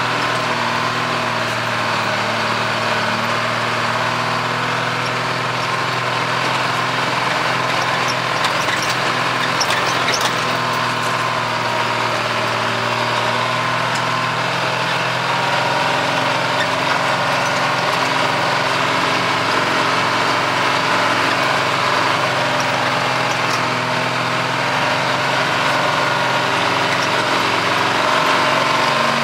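Old truck's engine running steadily at low speed, heard from inside the cab as the truck moves slowly, its pitch shifting slightly now and then.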